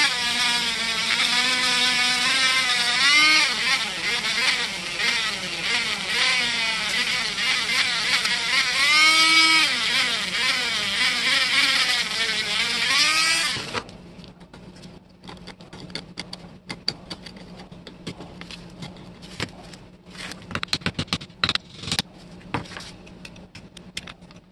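Handheld rotary tool with a small abrasive wheel grinding and polishing the grimy steel blade of an antique putty knife. Its motor whine dips and rises in pitch as the wheel bears on the metal. It cuts off suddenly about 14 seconds in, and scratchy scraping with small irregular clicks follows as the blade is scraped by hand.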